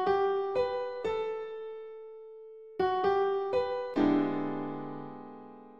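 Short keyboard jingle, electric-piano-like: three notes, a pause, then three quicker notes and a held chord that slowly fades out.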